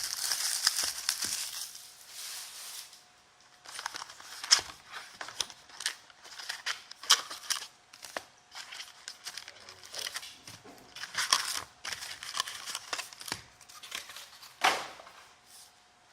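Plastic shrink wrap and cardboard packaging of a sealed trading-card box being torn open and crinkled in short, irregular bursts, with one sharper rip near the end.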